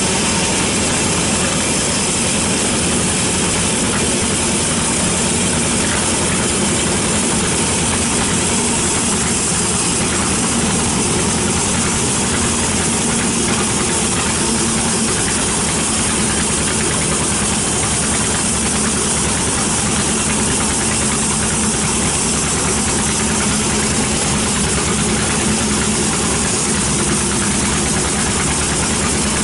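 Large sawmill band saw running steadily as its blade saws lengthwise through a teak log, an even, unbroken machine noise with no pauses.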